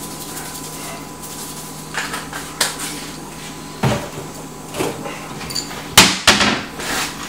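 Scattered knocks and clatters of kitchen handling, including a wooden wall cabinet door being opened and shut, with the loudest knock about six seconds in. A faint steady hum sits underneath.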